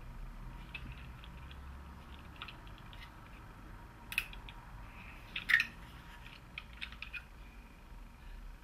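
Small plastic clicks and taps as a VW ABS module's circuit board and valve-coil section is handled and fitted into its plastic housing, with two sharper clicks about four and five and a half seconds in.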